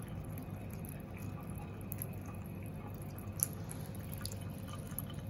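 Thin stream of tap water running steadily into a ceramic sink, with a single faint click about three and a half seconds in.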